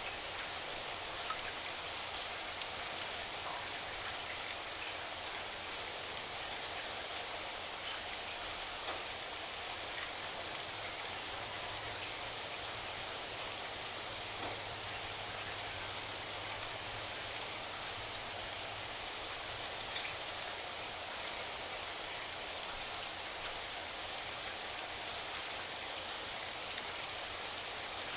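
Steady rain falling: an even hiss with scattered individual drops ticking through it.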